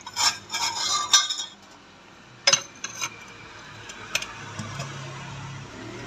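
Metal parts clinking and clattering as they are handled by hand, then a single sharp metal knock and a few lighter clicks as parts are fitted together.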